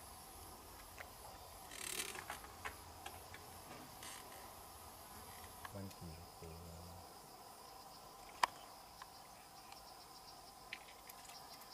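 Insects chirring steadily, a faint high-pitched drone that shifts to a lower pitch about halfway through. A short rustle comes about two seconds in, and a single sharp tick about three-quarters of the way through.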